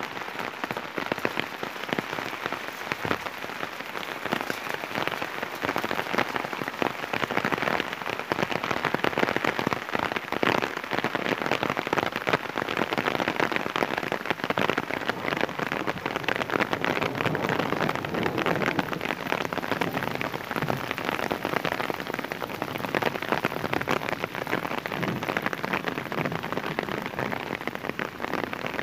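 Heavy rain falling steadily on a paved street and puddles: a dense, even patter of countless drops.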